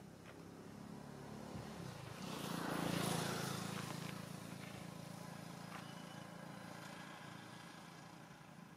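A motor vehicle passing, its engine hum and tyre noise swelling to a peak about three seconds in and then slowly fading.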